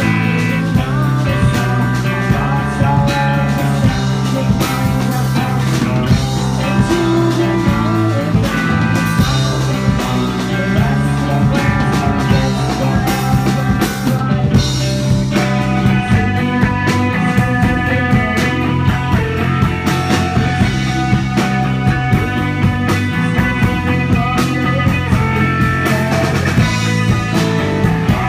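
Live rock band playing: two electric guitars, bass guitar and drums, with a change in the guitar part about halfway through.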